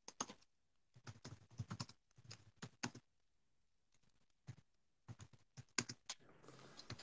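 Faint, irregular clicking of keys being typed in quick runs, with a pause of about a second and a half midway.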